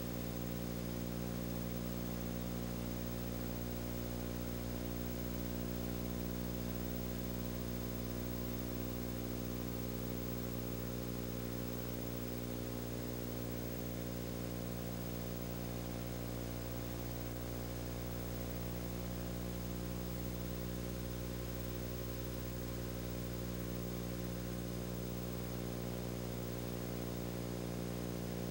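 Steady low hum made of several even tones with a faint hiss above, unchanging throughout, with no speech or music.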